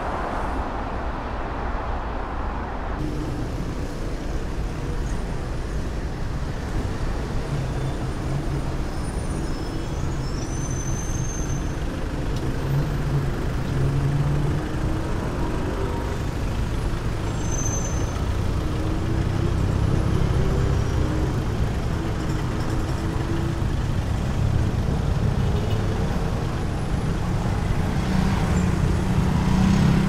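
Road traffic passing close by: cars driving and queuing in a bridge lane, a steady hum of engines and tyres. A few faint, brief high squeaks sound over it. About three seconds in, a softer, hissier city background gives way to the nearer traffic.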